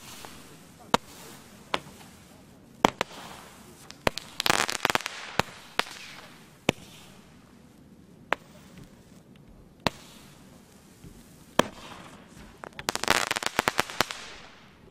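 Power Pearls 96 firework cake firing its pearls in sequence: sharp single pops roughly every one to one and a half seconds, with two short stretches of rapid crackling pops, one about four seconds in and one near the end.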